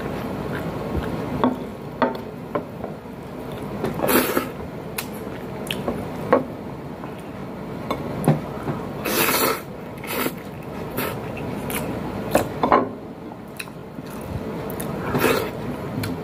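Close eating sounds of a man eating pancit canton noodles, pork menudo and rice with his hands: wet mouth smacks, chewing and sharp little clicks, with a few longer wet sounds, the loudest about nine seconds in.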